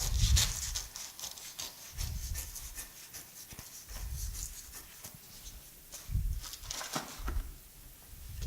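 Scissors snipping and trimming a Velcro-backed abrasive cloth sheet, with short scratchy cuts and handling noise. Several dull thumps come about every two seconds.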